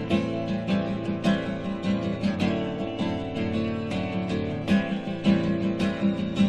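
Acoustic guitar strummed and picked in a steady rhythm, an instrumental passage with no singing.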